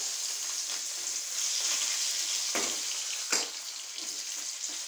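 Battered cauliflower pieces deep-frying in hot oil in a small kadai, a steady sizzle, while a perforated metal skimmer stirs them, knocking against the pan a couple of times about two and a half to three and a half seconds in.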